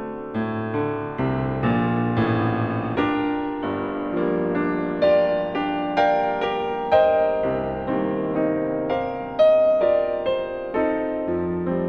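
Background piano music, a gentle melody of single notes and chords, each note sounding and fading away.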